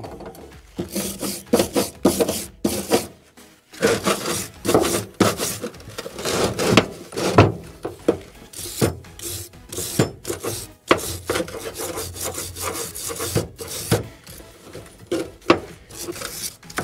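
Steel wire brush scrubbing caked manure and rust off a manure spreader's floor conveyor chain link, in repeated rough back-and-forth strokes with short pauses.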